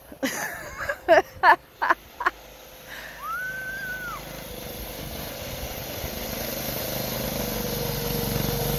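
A few short, high-pitched yells in quick succession, then one longer high cry about three seconds in. From then on a snowmobile engine comes in and grows steadily louder as it approaches.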